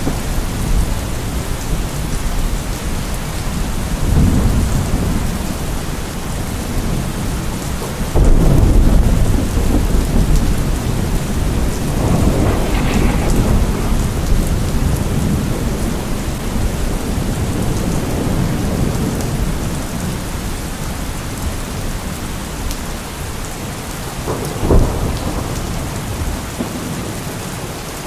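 Steady rain of a thunderstorm falling, with low rolls of thunder swelling and fading. The loudest roll comes about eight seconds in, and a short, sharper clap comes a few seconds before the end.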